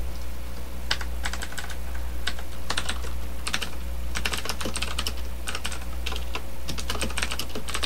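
Computer keyboard typing: irregular runs of keystrokes starting about a second in, over a steady low hum.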